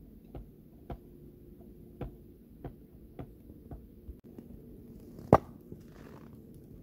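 Burning wood crackling with irregular sharp pops inside a Finnish candle, a log fire burning from within. About five seconds in comes one loud, sharp hatchet strike on wood.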